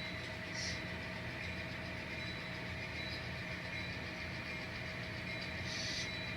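Steady low diesel-engine rumble from a model locomotive's sound decoder as it shoves cars at slow speed, with two short hisses, one about half a second in and one near the end.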